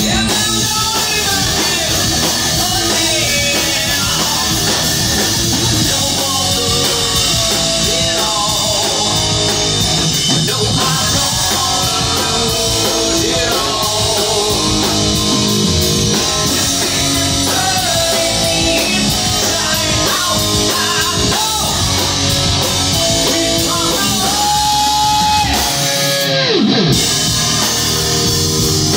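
Live rock band playing loud: electric guitars, bass and drum kit, with a singer's vocals. Near the end a long held note slides down sharply, followed by a very short break.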